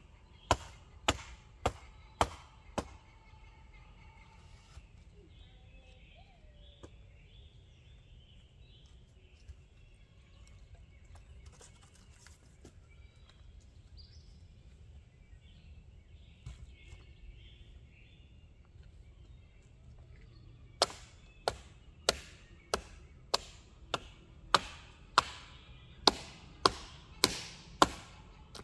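Repeated blows on wood: five quick strikes about half a second apart at the start, then, after a long pause, a steady run of about two strikes a second starting some 21 seconds in.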